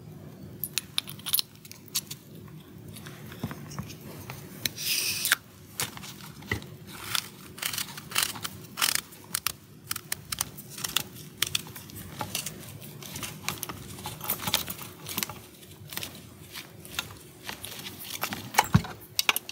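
Irregular clicks, ticks and scrapes of a Neutrik XLR connector being handled: its metal shell and rubber boot are unscrewed and screwed back together by hand, with a thread the maker suspects got a little cross-threaded. There is a brief rustle about five seconds in.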